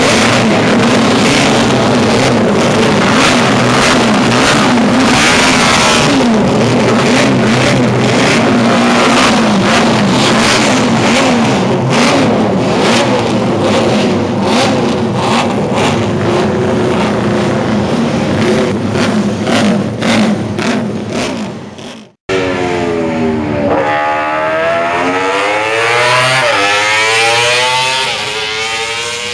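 Many vintage Honda multi-cylinder Grand Prix racing motorcycles running together, their riders blipping the throttles in quick, sharp revs. After a sudden break about two-thirds of the way in, engines rise and fall in pitch as the bikes accelerate away, stepping up through the gears.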